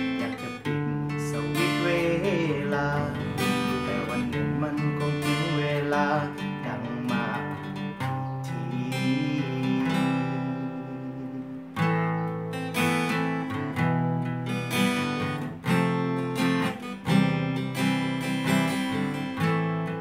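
Steel-string acoustic guitar played solo as an instrumental interlude, strummed chords with picked notes. It thins out to a quieter, sparser passage about eight seconds in, then firm strumming returns about twelve seconds in.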